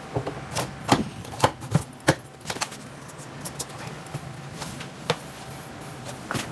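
Sharp knocks and clicks of a metal rack-mount unit being slid and seated into a rack flight case, several in the first two and a half seconds and one more about five seconds in.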